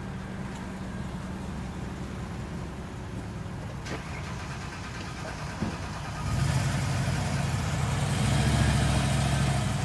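Dodge Ram 1500 pickup's V8 engine idling steadily, getting louder about six seconds in.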